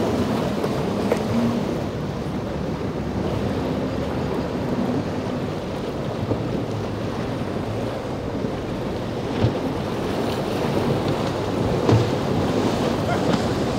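Outboard-powered boats running through choppy surf, with engine drone under the splash of breaking waves and wind buffeting the microphone. A couple of brief thumps come in the second half.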